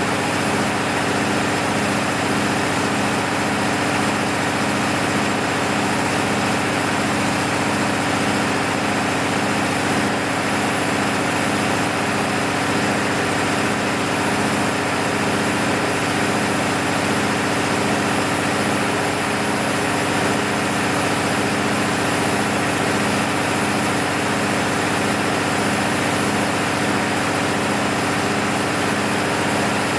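Six-cylinder diesel engine of an MEP-006A 60 kW military generator set, running steadily and evenly during a load test after a full engine overhaul.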